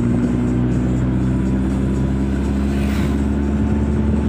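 Steady engine and road noise inside the cabin of a vehicle driving at a constant speed, with music playing over it.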